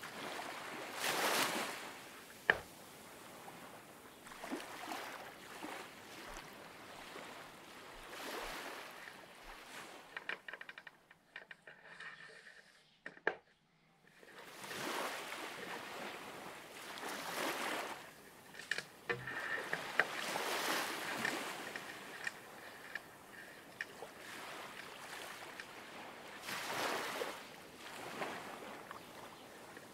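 Water washing in repeated swells every few seconds, with a single sharp click about two and a half seconds in and a brief lull near the middle.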